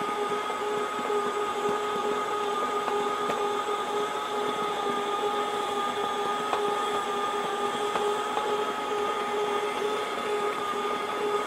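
Electric stand mixer running at a steady speed, its beater kneading a thick ground-meat paste in a steel bowl: an even motor whine with a few fixed tones.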